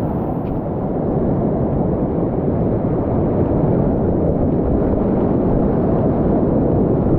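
Whitewater rapids at high flow (about 1500–2000 cfs) rushing around a kayak: a loud, steady, deep rush of churning water.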